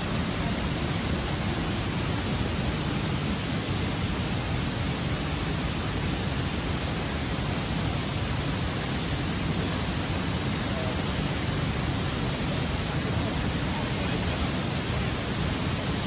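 Steady, even rushing noise that does not change and holds no distinct sounds.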